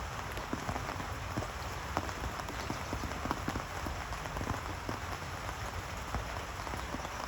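Steady rain falling, with many close drops striking a surface at irregular intervals.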